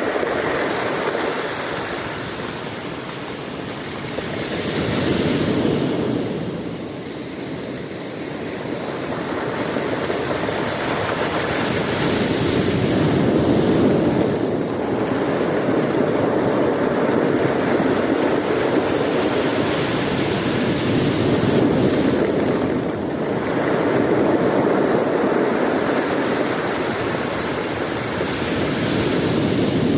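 Ocean waves breaking and washing on the shore, a steady rush of surf that swells and eases every few seconds, with some wind on the microphone.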